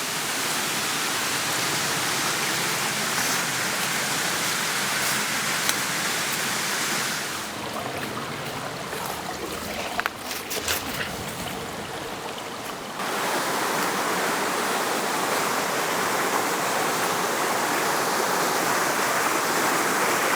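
Mountain creek water rushing over rocks in a steady wash. Partway through it turns quieter and duller for several seconds, with a few light clicks, then returns abruptly to full strength.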